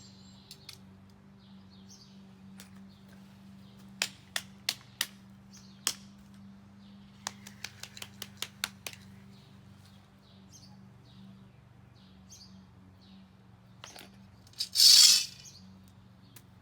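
A few sharp clicks and taps, then a quicker run of lighter clicks, and about fifteen seconds in one short, loud scrape; birds chirp faintly over a low steady hum.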